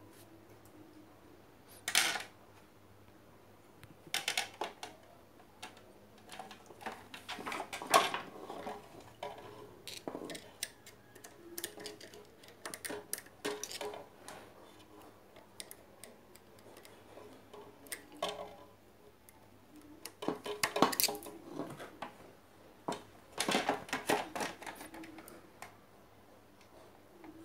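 Small metal tools and blender motor parts being handled: scattered clicks, taps and short scraping rattles, in clusters at irregular gaps, with the sharpest knocks about 2, 8 and 21 seconds in.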